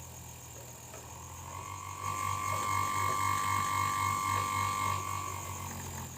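Capacitor-run table fan motor running on a regulator: a steady low electrical hum that throbs about four times a second, with a thin high whine over it.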